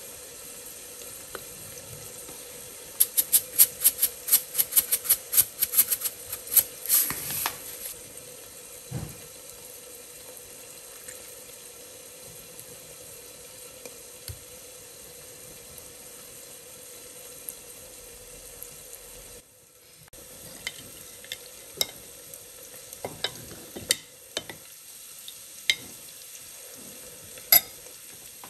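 Metal spoon stirring a wet marinade in a glass dish, clinking and scraping against the glass in irregular strokes in the second half. Earlier comes a fast run of sharp clicks, about three a second, over a steady low hiss.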